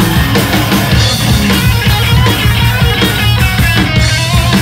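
Live hardcore punk band playing loud and fast: electric guitar, bass guitar and drum kit together, with no break.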